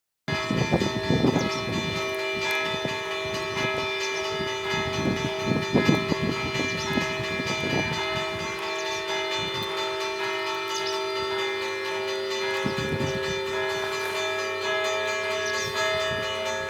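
Church bells chiming in the Danish Easter kimning, the clapper striking the bell in repeated strokes about once a second while the struck tones hang on and overlap.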